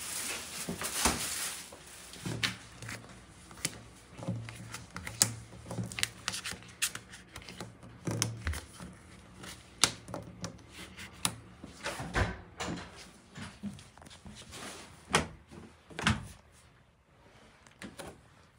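Fridge, cupboard and door handling in a small room: a string of sharp clicks and knocks. A low hum runs for several seconds in the first half.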